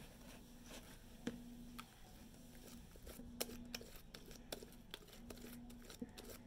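Faint sticky clicks and pops of homemade white glue slime being squeezed and stretched by hand, with a faint low hum that comes and goes.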